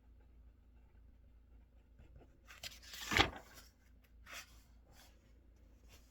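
Desk sounds during quiet study: about three seconds in, a loud brushing rustle swells and stops sharply, followed a second later by a shorter rustle and a small click, typical of paper being handled.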